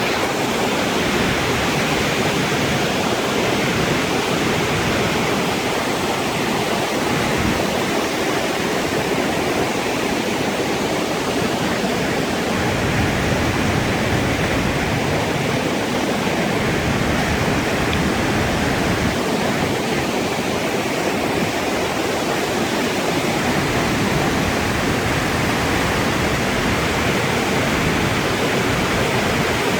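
Flash-flood water pouring over a canyon waterfall and rushing down the wash: a loud, steady, unbroken rush of water.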